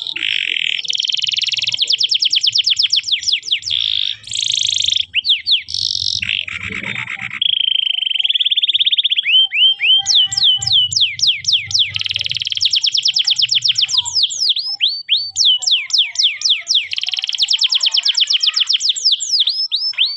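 Domestic canary singing a long, varied song: fast trills and rolls, with runs of quick downward-sweeping notes through the second half.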